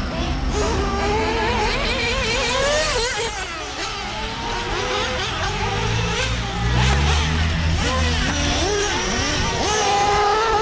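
Nitro engine (Traxxas 3.3) of a Revo RC truggy running on the track, its pitch rising and falling constantly as the throttle is worked. A deeper low rumble swells underneath for a couple of seconds mid-way.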